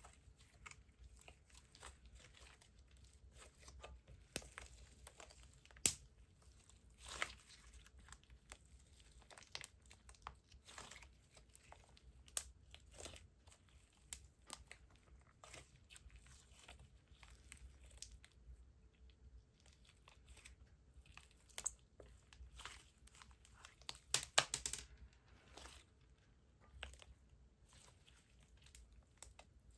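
Hands stretching, folding and squeezing a thick white slime with small bits mixed in, giving irregular soft crackles, pops and tearing sounds. A few sharper pops stand out, with a quick cluster of them about three-quarters of the way through.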